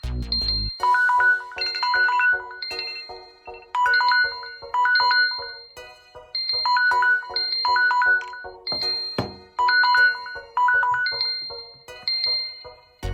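Mobile phone ringtone: a short melody of clear notes that repeats about every three seconds.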